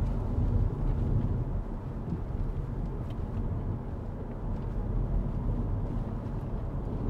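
Steady low rumble of a car on the move, heard from inside the cabin: engine and tyre noise with no sudden events.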